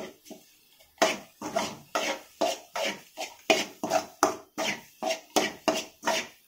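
A kitchen utensil knocking repeatedly against cookware, about two to three sharp strikes a second in an uneven hand-driven rhythm.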